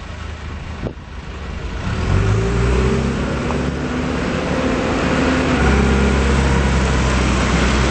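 John Deere 410G backhoe loader's diesel engine running, speeding up about two seconds in and then holding steady at the higher speed.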